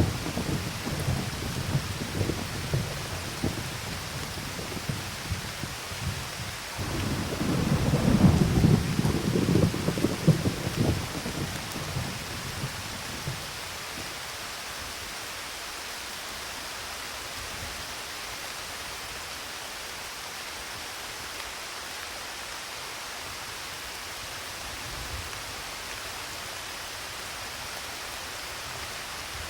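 Steady rain with thunder. A low rolling rumble fades out over the first few seconds, a second, louder one swells about seven seconds in and dies away a few seconds later, and after that only the even hiss of the rain is left.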